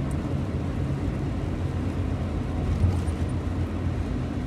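Steady engine hum and road noise heard from inside a moving vehicle's cab at cruising speed.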